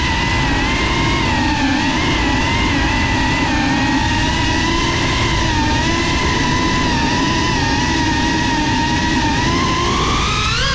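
FPV quadcopter's brushless motors whining steadily at cruising throttle, recorded close up by the camera on the drone. The pitch wavers slightly, then rises sharply near the end as the throttle is pushed up.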